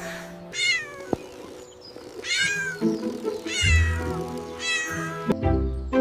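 A cat meowing four times, each meow falling in pitch, over background music.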